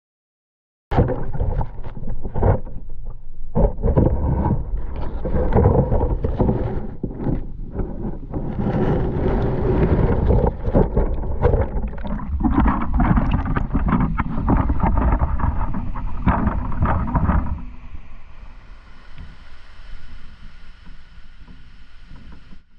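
Waterfall rushing, heard through heavy wind buffeting on the microphone. About a second in the sound cuts in, and the buffeting eases at around seventeen seconds, leaving a quieter, steady rush of water.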